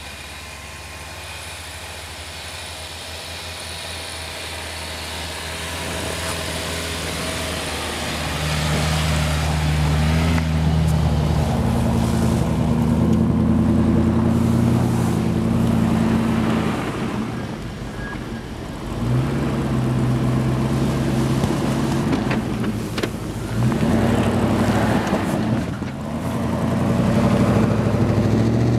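A 4x4's engine grows louder as it approaches through deep snow. Then a Land Rover Discovery I's engine revs hard in several long surges, easing off between them, as it pushes through deep snow.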